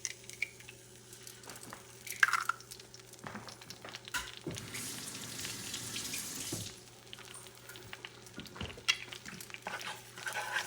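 Hot olive oil sizzling in a pan, with scattered clicks and knocks of cooking as egg goes in to fry. A louder stretch of sizzling begins with a knock about four and a half seconds in and lasts about two seconds.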